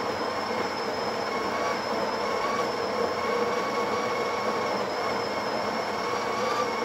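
The Breville Barista Express BES870's built-in conical burr grinder running, grinding the second single-shot dose of espresso beans into the portafilter. The grinding is steady, with a steady motor whine over it.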